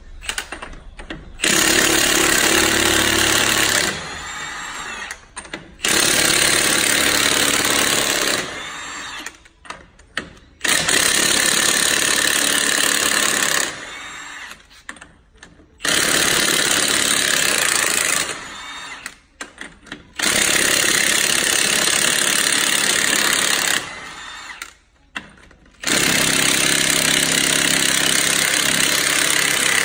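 Milwaukee cordless impact wrench hammering the lug nuts off a semi truck's front wheel, in six runs of about two to four seconds, one nut after another, with short pauses between.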